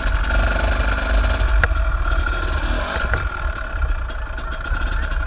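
Dirt bike engine running steadily while riding on a dirt track, with wind buffeting the microphone and a few knocks from the bumps.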